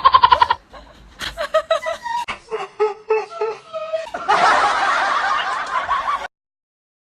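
People laughing: a quick run of ha-ha bursts at the start, then broken laughs and voice sounds, and a louder, denser stretch of laughter that cuts off suddenly about six seconds in.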